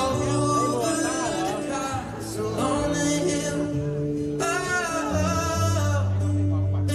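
Male singer performing live with guitar and band accompaniment, recorded on a phone from the audience in a large concert hall.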